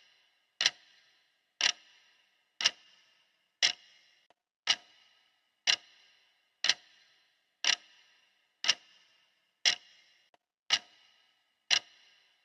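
Clock ticking steadily, one sharp tick each second, each with a short ringing tail.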